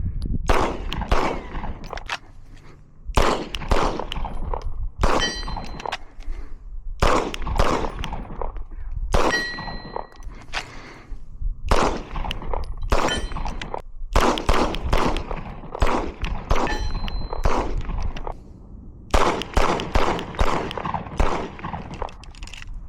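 Glock 19 Gen 5 9mm pistol fired in quick strings of shots, with steel targets ringing as the bullets hit them.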